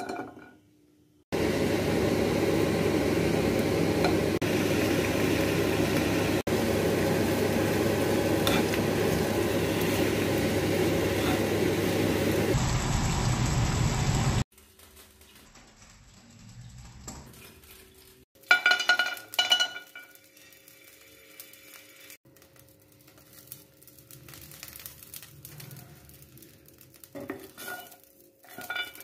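Spinach and garlic cloves sizzling in a non-stick frying pan: a loud, steady hiss that cuts off abruptly about halfway through. Afterwards it is much quieter, with a brief run of clinks of a utensil against dishes.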